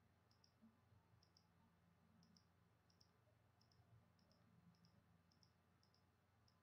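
Faint computer mouse clicks, about a dozen, each a quick press-and-release pair, coming at an uneven pace of roughly two a second. Each click selects one more object on screen.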